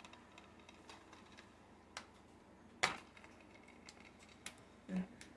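Plastic DVD case being handled and snapped open: a few sharp plastic clicks, the loudest near the middle, and a duller knock near the end.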